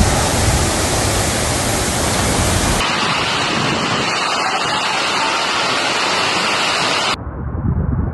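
Loud, steady rushing noise with no pitch or rhythm. It changes abruptly about three seconds in, losing its deep rumble, and again near seven seconds, where it turns duller and a little quieter.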